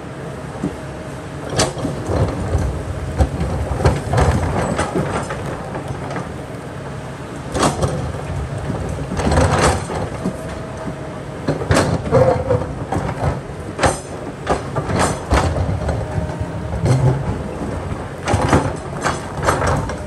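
Kobelco hydraulic excavator at work: its diesel engine runs steadily while the bucket scrapes and clanks against rock again and again.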